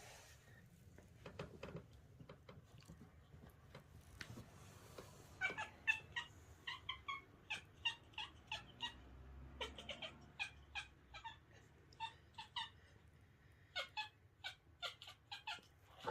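A kitten giving a long run of short, high squeaky chirps, several a second, starting about five seconds in after a few faint clicks.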